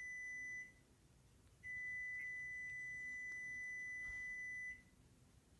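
A steady, high-pitched electronic beep tone. It cuts off shortly after the start, then sounds again about a second later and holds for about three seconds before stopping.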